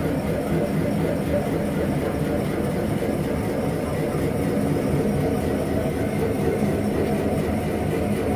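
Metal-working lathe running steadily during a boring cut: a constant machine hum with no change in speed.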